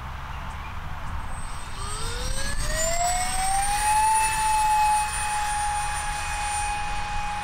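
The 50mm electric ducted fan of a model jet whining in flight. The whine climbs steeply in pitch about two seconds in, then holds a steady high note, loudest around the middle.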